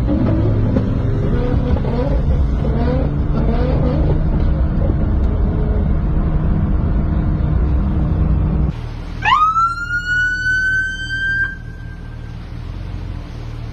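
A sports car's engine and exhaust, heard from inside a car, run loud with the pitch rising and falling through revs and gear changes. About nine seconds in, a police siren winds up in a fast rising wail, then holds nearly steady for about three seconds before stopping. A low, steady engine hum runs under the siren.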